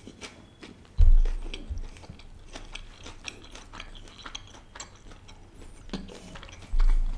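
Close-miked mouth chewing a bite of tandoori chicken: many small wet clicks and smacks. A low thud comes about a second in and another near the end.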